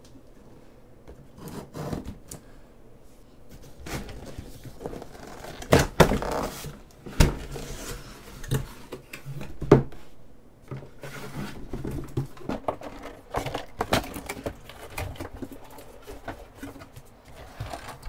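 Cardboard packaging being handled: scissors slitting packing tape, the box flaps opening, and cardboard and packing being moved about with scattered knocks, rustles and scrapes, the loudest knocks about six and ten seconds in.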